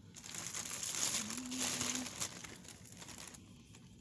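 Plastic bag crinkling as it is handled and filled, loudest in the middle and dying away before the end.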